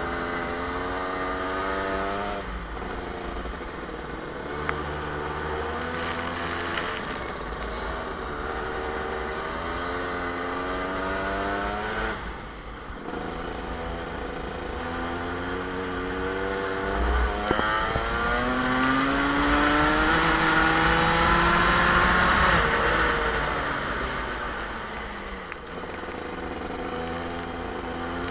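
Rotax two-stroke kart engine heard from onboard at race pace, climbing in pitch through long pulls and dropping off sharply a few times as the driver lifts for corners, with a steady hiss under it.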